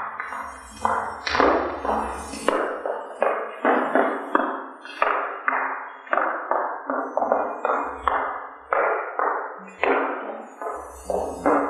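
A dancer's hard-soled shoes stepping and stamping on a wooden stage floor, about two sharp thumps a second in a steady dance rhythm, with no music: the Vrličko kolo is a silent kolo, danced to the sound of the feet alone.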